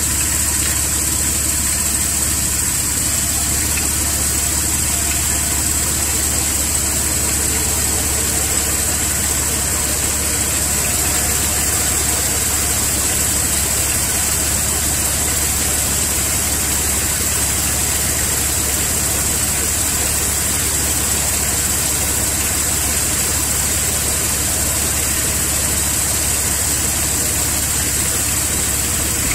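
Car engine idling steadily under the open hood, shortly after a cold start.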